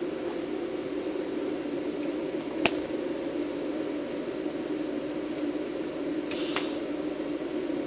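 Steady low hum of a TIG welding setup waiting to strike an arc, with one sharp click about two and a half seconds in and a brief hiss near the end.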